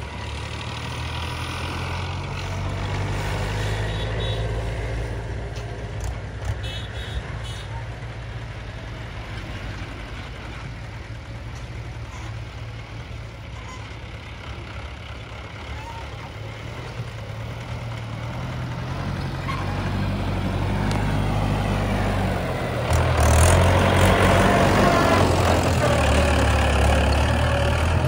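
Mahindra 475 DI tractor's four-cylinder diesel engine running steadily as it pulls a trolley loaded with earth. It grows louder as the tractor comes closer and is loudest over the last few seconds.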